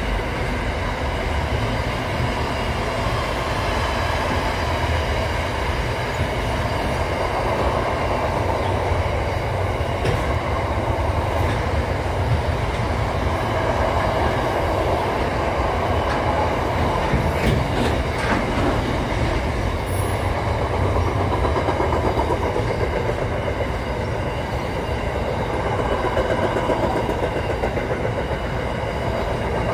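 Container freight train wagons rolling steadily past over a rail bridge: a continuous rumble and rattle of steel wheels on the rails, with a few sharp clicks about two-thirds of the way through.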